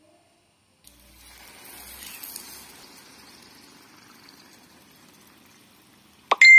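Cold sugar syrup poured over a very hot baked semolina cake (qalb el louz) in a metal tray, sizzling as the hot cake takes it in. The sizzle starts about a second in, is loudest soon after, then settles and fades. Just before the end comes a loud metallic clink that rings on briefly.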